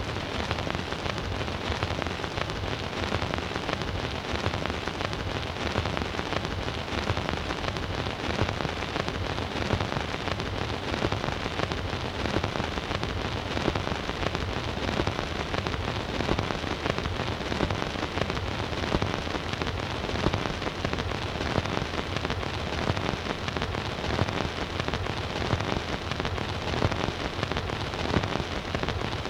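Surface noise from the lead-in groove of an 8-inch 78 rpm record playing on a Bush record player: a steady hiss with constant crackle and small pops, and no music.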